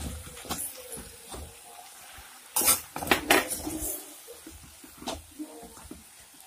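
A stirring spoon scraping and knocking against the inside of an earthenware clay pot as chicken and spices are mixed, in irregular strokes with the loudest ones a little past halfway.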